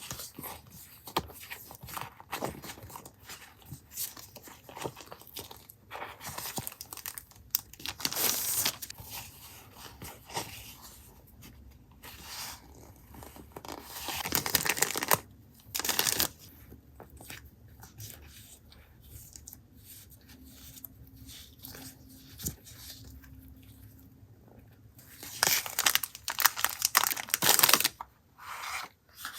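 Close-up paper and sticker packaging being handled: irregular rustling and crinkling, with louder tearing bursts about halfway through and again near the end.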